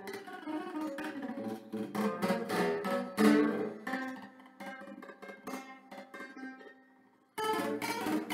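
Nylon-string classical guitar played solo, with plucked notes and strummed chords. Near the end the notes ring out and fade almost to silence, then loud strumming comes back in suddenly.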